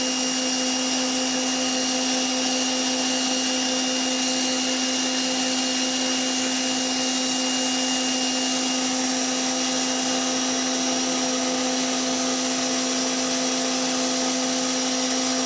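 PowerSmart PS22 electric pressure washer running steadily with the trigger held, its motor and pump humming under a hiss of fan-tip water spray striking vinyl siding.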